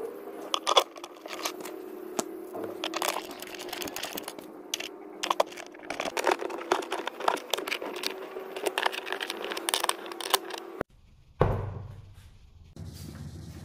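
Irregular metallic clicks and scrapes as metal bolts are threaded by hand into an IKEA Strandmon chair's wooden frame, over a steady low hum. The clicking stops near the end, and a single thump follows.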